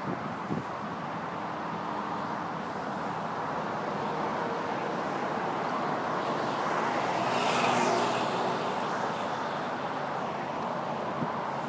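Road traffic: a steady hiss of cars going by, swelling as one car passes about two thirds of the way through. A couple of faint knocks, one near the start and one near the end.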